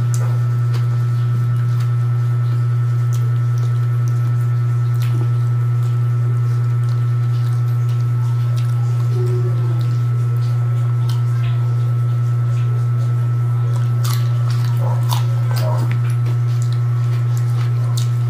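A loud, steady low hum, with quiet chewing and mouth sounds of a man eating kinilaw and rice by hand.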